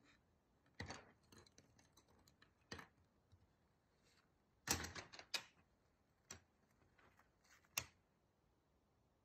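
Thin wooden strips clicking and tapping as they are picked up and set down on a desk top. There are a few scattered knocks and a quick run of clicks about halfway through.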